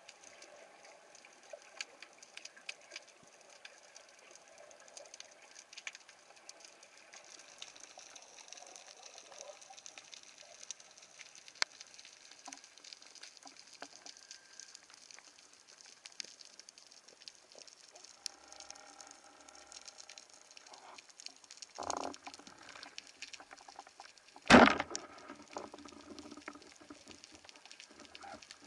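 Underwater crackling of many small clicks, then about 25 s in one sharp, loud crack with a ringing tail as a band-powered speargun fires its shaft.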